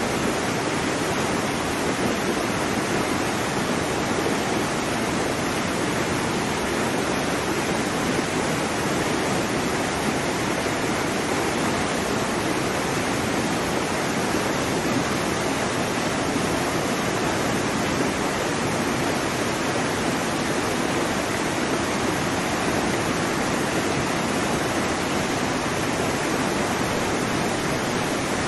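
Continuous rushing water: a steady, even hiss with no rise and fall of separate breaking waves.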